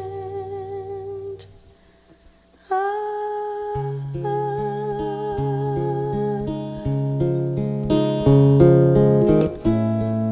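Background music: acoustic guitar picking under a slow melody of long, wavering held notes, which drops away briefly about two seconds in before coming back.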